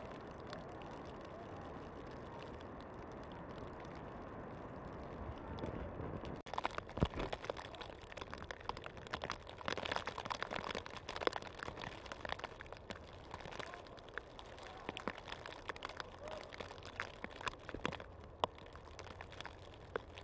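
A steady low rumble, then, after an abrupt change about six seconds in, irregular light ticking and tapping of falling snow landing on branches and twigs.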